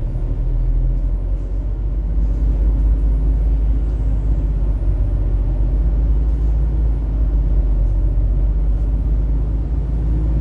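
Steady low rumble of a Transjakarta double-decker bus running, heard from inside the passenger cabin.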